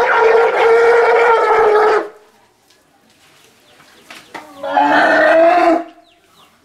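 Baby elephants bellowing at milk feeding time: a long, loud, steady cry that cuts off about two seconds in, then a second, lower cry of about a second starting about four and a half seconds in.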